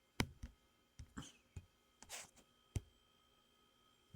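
Faint, scattered sharp clicks, about half a dozen over a few seconds, with a brief rustle of handling about halfway through.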